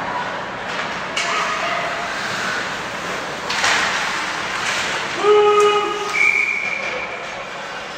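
Ice hockey rink noise during play: sticks and puck knocking against each other and the boards, with spectators calling out. A loud shout about five seconds in is followed by a short, high, steady whistle blast.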